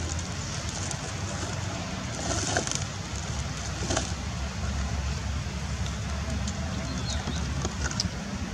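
Steady outdoor background noise, a low rumble under a hiss, with a few faint brief clicks.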